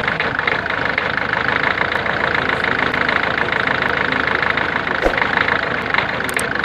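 Ford Figo 1.4 TDCi four-cylinder diesel engine idling steadily, with the noise and vibration that the owner traces to a faulty injector.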